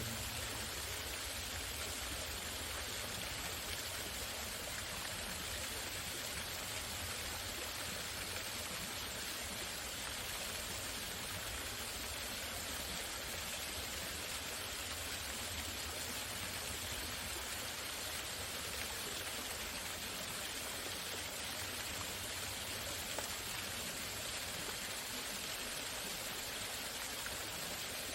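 Waterfall rushing steadily, an even, unbroken water noise.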